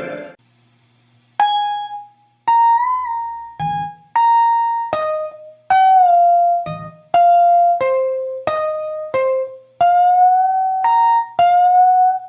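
A shred guitar lick played slowly on electric guitar, one picked note at a time. Each note starts sharply and rings out, with a small bend about three seconds in and vibrato on the longer held notes near the end. The notes begin after a second or so of low hum.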